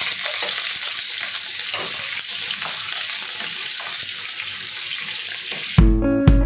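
Chopped onions sizzling in hot cooking oil in a pan as a wooden spoon stirs them, a steady frying hiss. Near the end it cuts off abruptly and music with a steady beat begins.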